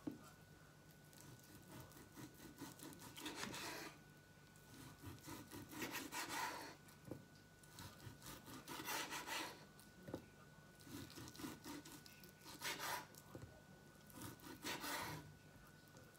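Kitchen knife slicing raw beef on a wooden cutting board: faint sawing strokes of the blade through the meat in short bursts a few seconds apart, with an occasional light tap of the blade on the board.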